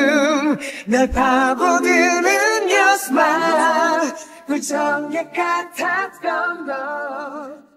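Background song: a sung vocal line with wavering pitch, fading out near the end.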